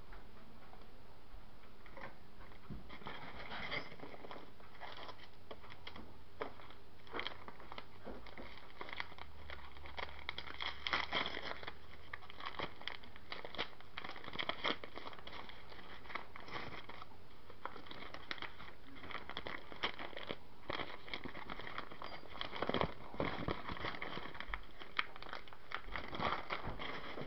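Foam packing peanuts and plastic packaging rustling and crinkling as hands dig through a foam-lined shipping box. The sound is an irregular crackle throughout, with louder flurries about ten seconds in and again a little after twenty seconds.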